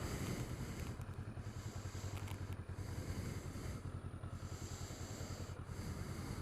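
Motorcycle engine running steadily at low revs, a deep, even throb.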